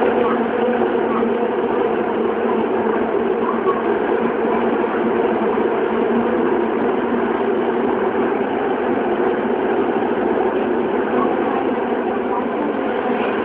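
Toei Mita Line 6300 series subway train running through a tunnel, heard from inside the car: a loud, steady rumble of wheels on rail. A few faint steady tones near the start die away within the first couple of seconds.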